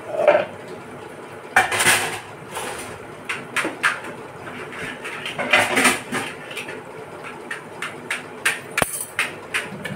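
Stainless-steel kitchenware clinking and clattering as plates, forks and bowls are handled and set down. There are a few louder clatters, with many light clinks scattered through the second half.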